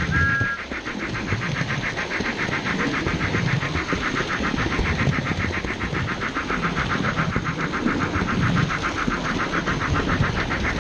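Battery-powered toy trains running on plastic track: a steady motor hum and rumble with a fast, even clatter of about six ticks a second. Two short beeps of a toy whistle sound right at the start.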